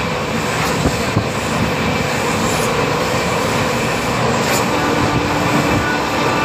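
Steady running noise of a moving Indian Railways passenger train heard from aboard a coach, wheels rolling on the rails, with a couple of light knocks about a second in and a low steady hum joining about five seconds in.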